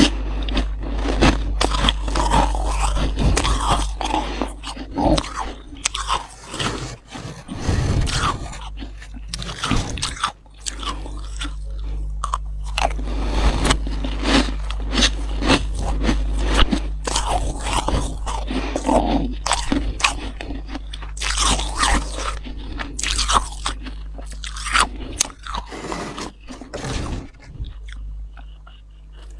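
Freezer frost crunching as it is bitten and chewed by the spoonful, dense crackly crunches one after another with short pauses.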